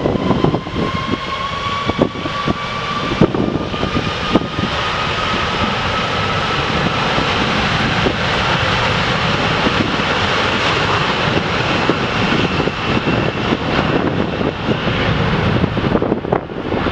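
Twin jet engines of an Airbus A330 at takeoff power during the takeoff roll: a loud roar building steadily, with a whine slowly rising in pitch as the engines spool up.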